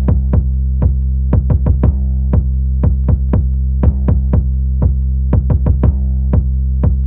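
Electronic music with a drum-machine beat over a steady heavy bass.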